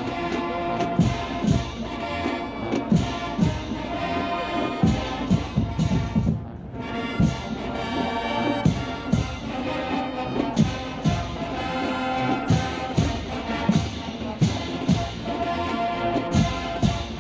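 College marching band playing: brass holding chords over a steady beat of drum hits about twice a second, with a short break about six and a half seconds in.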